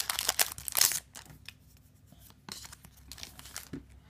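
Foil wrapper of a Yu-Gi-Oh! booster pack being torn open, a dense crinkling tear that fades after about a second, followed by fainter scattered rustles and light clicks as the cards are handled.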